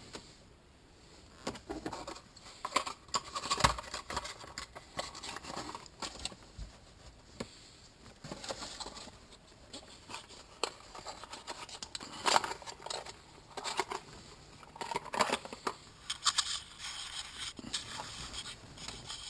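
Irregular clicks, taps and scrapes of hands handling and fitting parts at close range, coming in scattered bursts with short quiet gaps.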